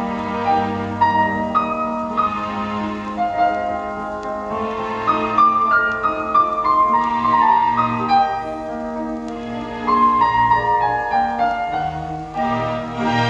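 Classical instrumental music with piano, played back through Dynaco A-35 loudspeakers fitted with newly replaced crossover network parts.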